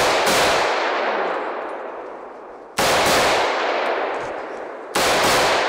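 Three rifle shots fired into the air as a funeral salute, about two and a half seconds apart, each a sharp crack followed by a long echo that fades away before the next.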